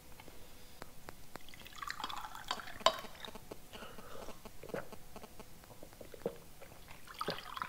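Water being poured into a small liquor glass in a few short bouts, with light knocks and clicks of the glass and bottle, the sharpest about three seconds in.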